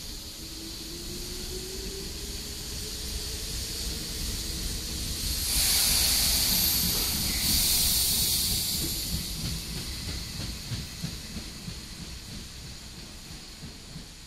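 Nishitetsu 6000 series electric train pulling away: a rumble of wheels on rail, with a faint motor tone rising in pitch as it accelerates. About five seconds in comes a loud hissing rush lasting about four seconds as the cars go past. Then the rumble and clacking of the wheels fade away as the train leaves.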